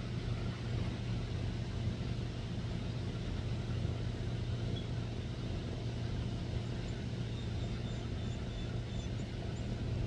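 A steady low rumble that holds at one level throughout, with a few faint, short high chirps.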